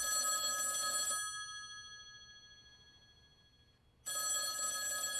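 Telephone ringing. One ring stops about a second in and its sound dies away, and the next ring starts about four seconds in.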